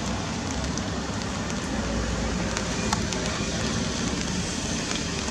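Steady rain falling, a constant hiss with scattered sharp drop ticks over a low rumble.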